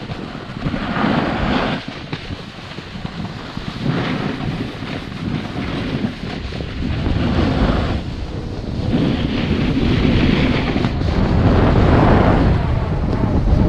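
Snowboard sliding and scraping over packed snow through a run of turns, the hiss swelling with each turn, mixed with wind buffeting an action camera's microphone.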